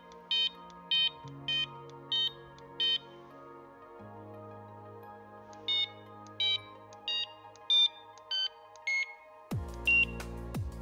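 Electronic carp-fishing bite alarm sounding a run of short high beeps, about one and a half a second, as a bite would trigger it. Five beeps are followed by a pause, then six more that change pitch from beep to beep, over background music.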